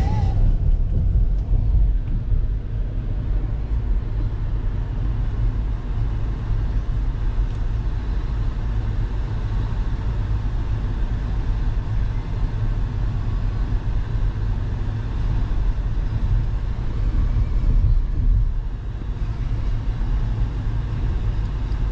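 Steady road and engine rumble of a car driving along a highway, deep and even throughout.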